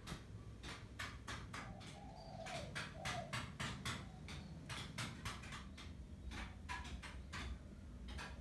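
A dove cooing softly in the background, a couple of low rounded coos a few seconds in, under a rapid, irregular run of sharp ticks, several a second, that are the loudest sound.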